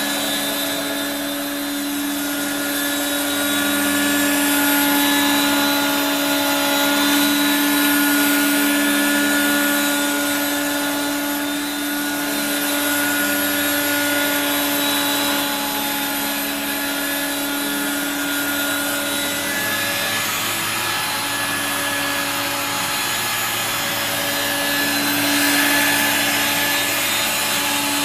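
1985 Regina Electrikbroom PowerTeam lightweight stick vacuum running steadily, its motor giving a constant whine over the rushing of air, with the noise swelling and easing a little now and then.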